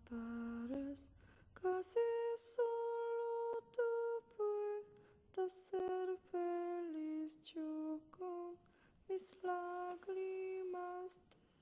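A woman's voice singing a slow melody unaccompanied, in short phrases of held notes that step up and down.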